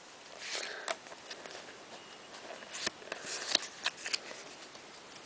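Foil booster-pack wrapper crinkling and cards being handled: a few short rustles and sharp clicks.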